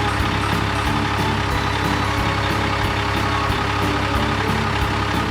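Truck engine running steadily, with a rapid regular pulse about four times a second, cutting off suddenly at the end.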